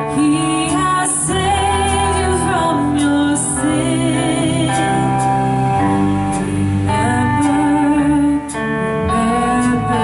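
Live church worship band playing a song with guitars and singing.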